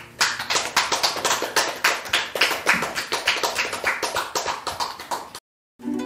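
A small audience clapping, with dense, uneven handclaps that stop abruptly near the end. Acoustic guitar notes start up right after.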